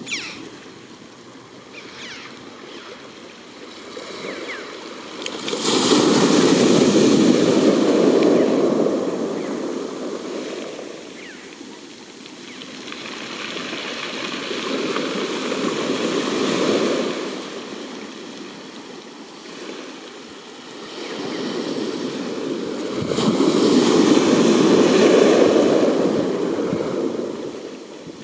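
Sea waves surging and breaking on the shore in three slow swells, each rising to a loud rush and ebbing away, the loudest about six seconds in and again near the end.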